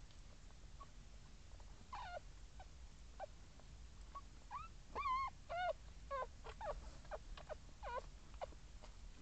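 Newborn puppies squeaking: short, high, wavering little cries, scattered from about two seconds in, loudest around the middle, over a faint steady hum.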